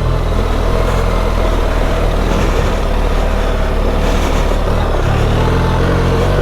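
BMW R 1300 GS Adventure's boxer-twin engine running steadily at low revs while riding along a trail, with a haze of wind and tyre noise over it.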